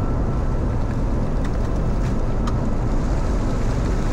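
Steady rush of airflow and engine noise inside the cockpit of a Bombardier Global 6000 business jet on final approach in rain, with a faint steady tone and a couple of faint ticks.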